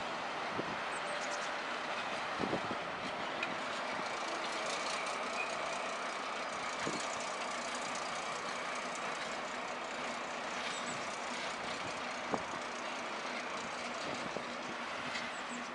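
Class 218 diesel-hydraulic locomotive running as it slowly hauls a rake of wagons away: a steady even engine and running noise with a faint high whine, broken by three short sharp clicks.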